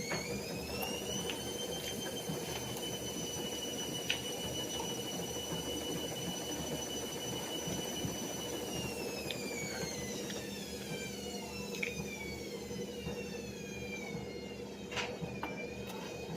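A small motor's high whine that rises in pitch at the start, holds steady for about eight seconds, then winds down, with a steady low hum underneath and a few light clicks.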